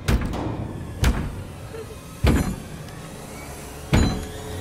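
Four heavy blows against a door, a second or so apart, each with a short ring-out, over a low steady film rumble. It is the movie soundtrack's door banging.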